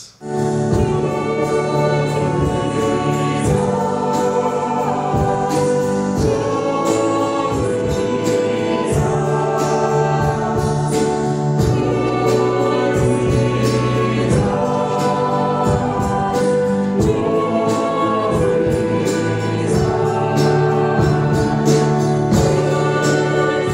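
A mixed choir singing a Christmas carol in harmony, in phrases a few seconds long.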